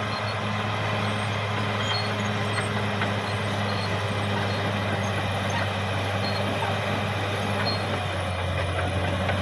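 Caterpillar D6R XL bulldozer's diesel engine running steadily at constant speed, with a noisy mechanical rumble over the engine note.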